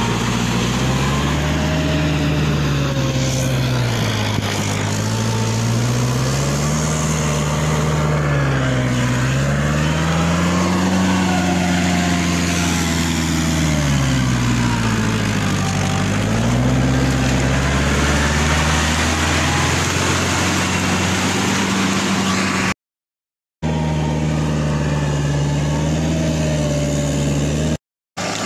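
Tractor engine working a rotary tiller through a flooded paddy field, its pitch swinging up and down every few seconds as the load changes. The sound cuts out briefly twice near the end.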